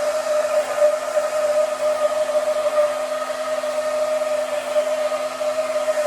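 Hair dryer running steadily while blow-drying hair: a constant rush of air over an even motor whine.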